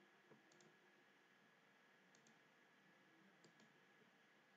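Near silence with faint computer mouse clicks, coming in quick pairs about three times.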